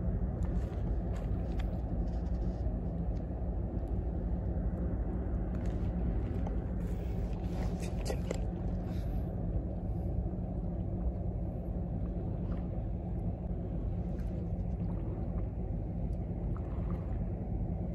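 A steady low mechanical drone with a hum in it, like a distant engine or machinery running, unchanged throughout. A few light clicks and handling rustles come in around the middle.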